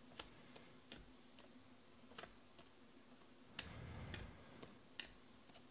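Faint, scattered clicks of Panini Prizm baseball cards being thumbed off a stack one at a time, with a brief rustle of card sliding against card about three and a half seconds in. A low steady hum runs underneath.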